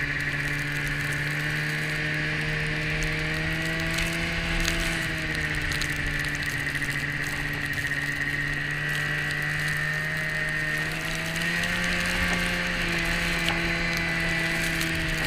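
Polaris 550 snowmobile's two-stroke twin engine running at steady cruising speed, with a rattling clatter from the track and drive and a thin whine over it. The engine note sags slightly in the middle and picks up again near the end.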